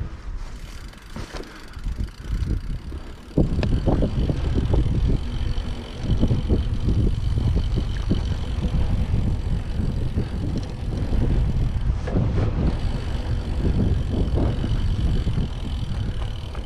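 Mountain bike being ridden over a trail: wind buffeting the microphone and tyres rumbling, with many short knocks and rattles. It gets suddenly louder about three and a half seconds in.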